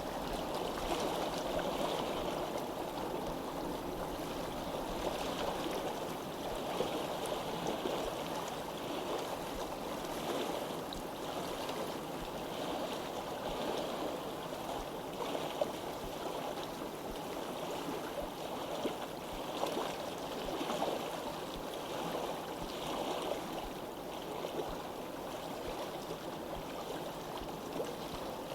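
Steady running water of a stream, flowing and gurgling without a break.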